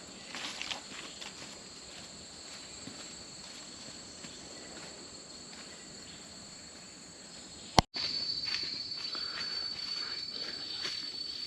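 Steady high-pitched buzzing chorus of jungle insects. A sharp click with a brief dropout comes about eight seconds in, after which the buzzing is louder.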